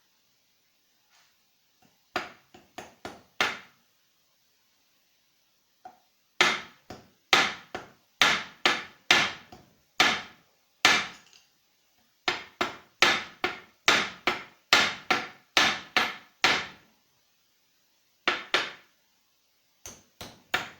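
Hammer blows struck in runs of about two to three a second, with short pauses between the runs.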